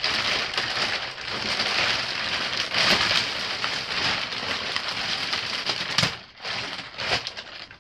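Thin plastic mattress wrapping crinkling and rustling loudly as it is handled and pulled off a new mattress. The crinkling runs on without a break, then comes in short bursts near the end.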